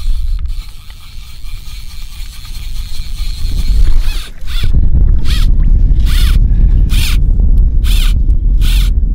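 Fly line being stripped in through a fly rod's guides in short pulls, a zipping rasp about once a second from about four seconds in. Wind buffets the microphone under it.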